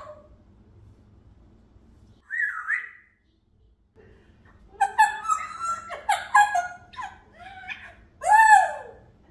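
African grey parrot vocalizing: a short warbling whistle about two seconds in, then a quick run of chattering whistles and babble, ending in a loud rising-and-falling call near the end.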